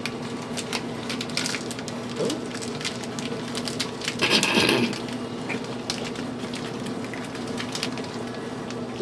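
Someone eating snacks and handling the packaging: scattered small clicks and crackles, with a louder crunching, rustling burst lasting under a second about four seconds in, over a faint steady hum.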